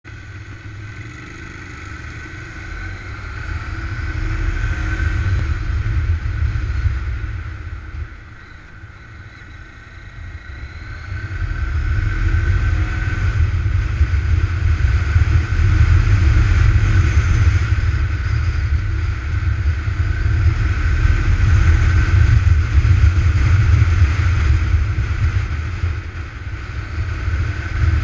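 Maxi-scooter engine heard from on board while riding, with heavy wind buffeting on the microphone. The engine eases off and goes quieter about eight seconds in, then picks up again a few seconds later and runs on steadily.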